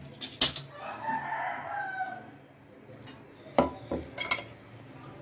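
Metal clanks of a pressure cooker and utensils being handled, the sharpest just after the start and a few more near the end. Between them a rooster crows once, lasting about a second and a half.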